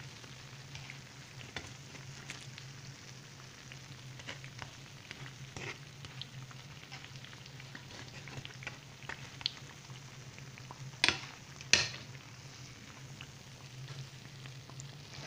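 Moroccan beignets frying in shallow oil in a nonstick pan: a steady sizzle with small crackles over a low hum. Two sharp clicks a little past two-thirds of the way through come from a fork knocking the pan as the beignets are turned.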